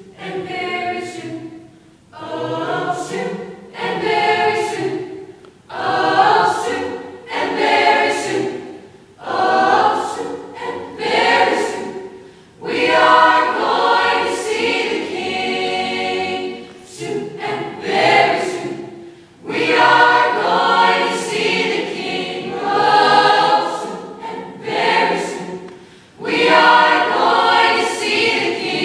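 Large mixed choir of teenage boys and girls singing in parts, phrase by phrase, with short breaks between phrases and crisp 's' sounds.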